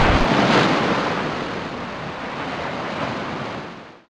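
A rushing, surf-like noise that fades away toward the end and cuts off. A deep rumble under it stops just after the start.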